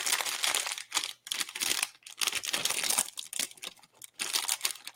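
Vinyl-toy blind-box packaging being torn open and crinkled by hand, in about five crackling bursts with short pauses between them.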